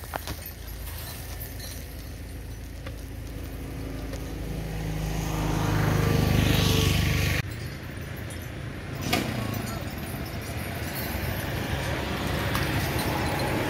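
An engine running and growing steadily louder over a few seconds, then cutting off suddenly just past the middle. After it comes steadier outdoor noise with one sharp knock.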